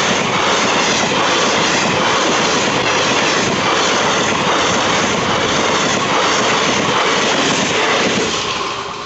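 Indian Railways passenger coaches rushing past close by at speed, a loud steady rattle of wheels on rails. The noise starts to fall away near the end as the last coach passes.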